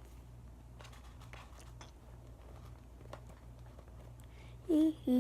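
Faint handling noises of soft foam squishy toys: a few small clicks and rustles over a steady low hum. Near the end a girl starts humming.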